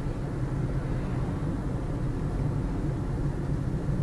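Car driving at a steady pace, heard from inside the closed cabin: a steady low drone of engine and tyre noise.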